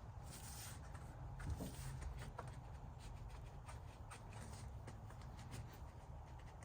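Faint, scattered light clicks and handling noises over a low, steady hum.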